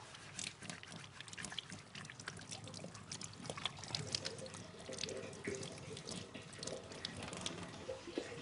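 Water running from a kitchen tap into a sink, with splashing and light clicks and clatter.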